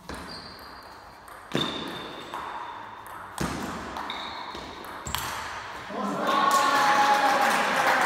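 Table tennis ball knocking off bats and table in a rally, sharp ringing clicks, about five of them over five seconds, echoing in a large hall. About six seconds in, a loud voice and crowd noise break in as the point ends.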